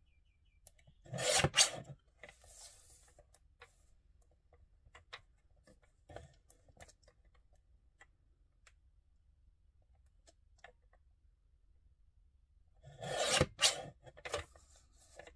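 Small guillotine paper trimmer cutting paper: the arm is brought down twice, each a rasping slice about a second long, once about a second in and again near the end. Light clicks and paper handling fill the gap between the cuts.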